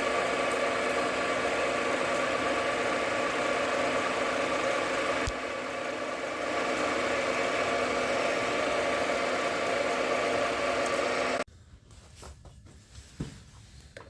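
JFMT lathe running under power through a straight-turning cut about a millimetre deep, a steady multi-tone whine from its motor and gearing. It stops abruptly about 11 seconds in, leaving faint knocks and handling sounds.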